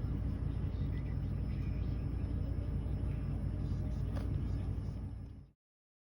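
Steady low rumble of a vehicle engine running, with a few faint ticks, cut off suddenly about five and a half seconds in.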